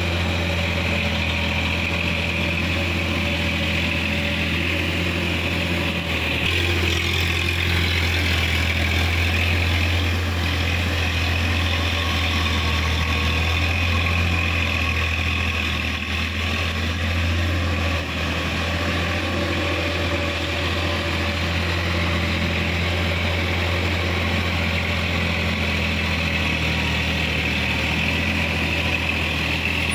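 TAFE 5450 DI tractor's diesel engine running steadily under load while pulling a rotary tiller through wet paddy mud, with a deep steady hum.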